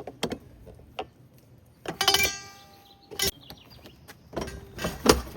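Metal clicks and knocks from a gate latch and pliers being worked, with one ringing metallic clink about two seconds in.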